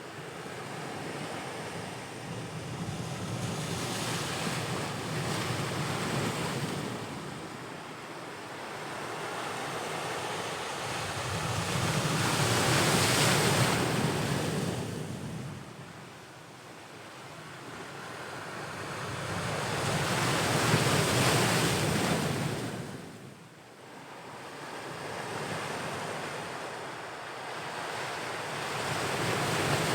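Ocean waves breaking and washing up the shore, the surf rising and falling in about four slow surges, with the two loudest near the middle and about two-thirds of the way through.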